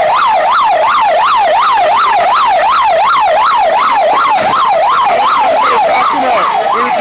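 Police pickup's siren in fast yelp mode, its pitch sweeping up and down about three times a second, loud and unbroken.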